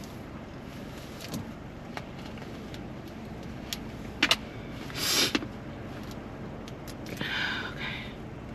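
Steady low hum in a car cabin, with a few light clicks scattered through it and two short bursts of noise, about halfway through and near the end.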